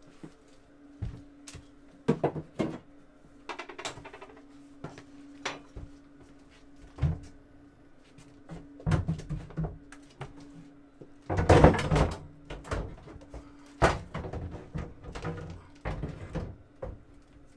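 A boat's alcohol stove-oven being set down into a plywood enclosure and its mounting brackets: a string of separate knocks, clunks and scrapes, the loudest cluster about eleven seconds in. A faint steady hum runs underneath.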